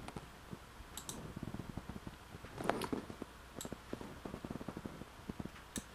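Faint computer mouse clicks: a few sharp clicks, the loudest just under three seconds in, with softer ticks in between.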